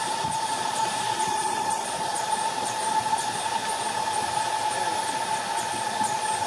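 A 5-inch gauge live-steam locomotive running: a steady hiss of steam with a steady high tone over it.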